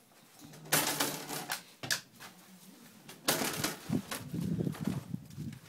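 A plastic pet-door flap clattering as a bulldog pushes through it, with two loud bursts of clatter about a second and three seconds in. Softer irregular shuffling follows near the end.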